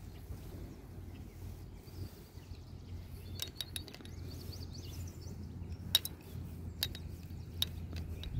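Wind rumbling on the microphone, with a few sharp light clicks and clinks scattered through it: a quick cluster about three and a half seconds in, the loudest near six seconds, and two more after.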